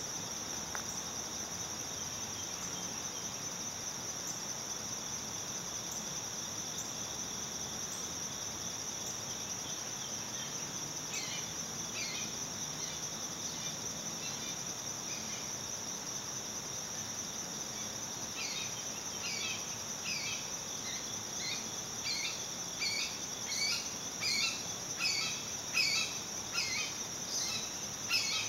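Steady, high-pitched insect chorus. About halfway through, a bird starts calling in short, downward-sliding chirps, which become regular at a bit more than one a second and louder near the end.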